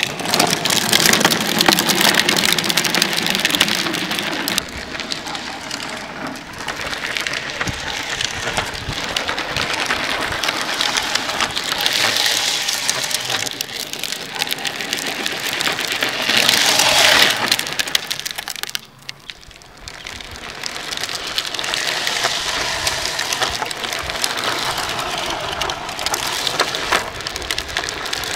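Hard PVC-pipe rear wheels of an electric drift trike sliding and rolling over rough asphalt: a continuous gritty, scraping hiss that swells and fades, with a short dip about two-thirds of the way through.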